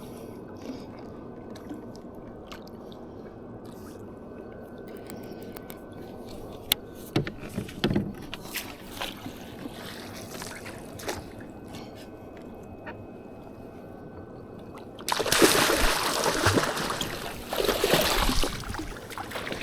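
Water sloshing and splashing against a kayak hull, with a few light knocks and clicks in the middle and a much louder rushing splash in two surges near the end.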